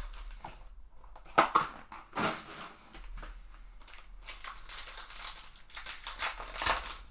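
Foil trading-card pack wrappers crinkling and tearing as packs are opened and cards are handled. There are sharp rustles a little over a second and about two seconds in, then a denser run of crackling near the end.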